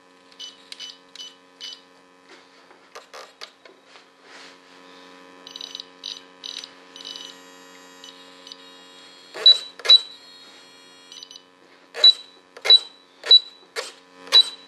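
A computer RC transmitter beeping in short high tones as its programming keys are pressed, over a steady servo buzz. From about nine seconds in, a series of loud sharp clicks with beeps, roughly two a second, as the switch for the pneumatic parachute valve is worked again and again.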